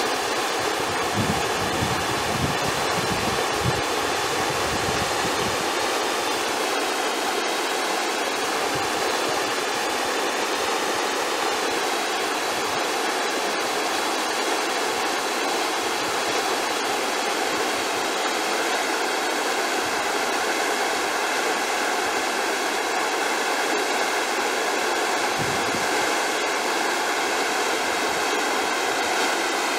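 Whitewater rushing through a river's standing wave: a steady, dense noise of churning rapids with no break.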